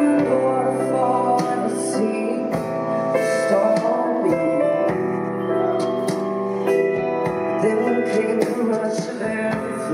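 A woman singing live over band accompaniment.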